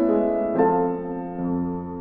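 Slow background piano music, held notes changing every half second or so.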